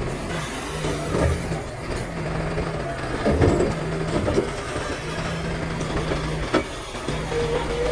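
DLC 225 excavator's diesel engine running steadily under load, with a few clunks and scrapes of blasted rock being moved and packed in the trench; the loudest clunk comes about three and a half seconds in.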